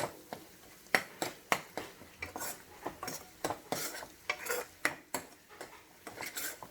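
Metal spatula scraping and clicking against a kadai as eggs are stirred and fried in hot oil, irregular strokes over a faint sizzle.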